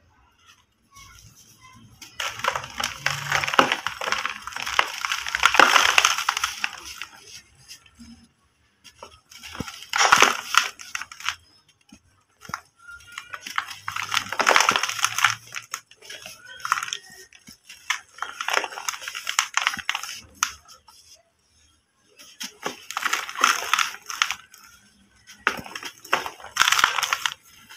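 Dry balls of compacted brick dust crushed and crumbled by hand, crunching and crackling in about six bouts of a few seconds each with short pauses between.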